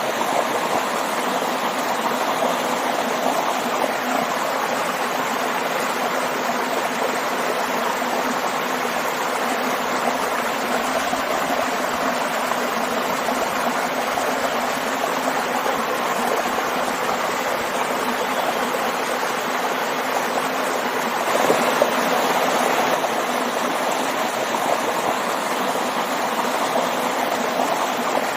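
Water rushing and splashing in a small waterfall and stream, a steady dense rush with a slight swell about three-quarters of the way through.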